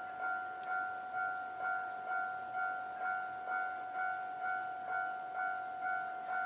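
Japanese railway level-crossing alarm ringing: an electronic bell striking one repeated ringing tone about twice a second, each strike dying away before the next. It is the warning that a train is approaching the crossing.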